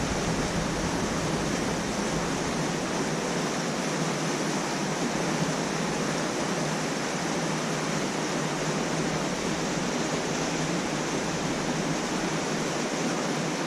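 Steady rushing of flowing water: an even hiss that holds level throughout, with no other sounds standing out.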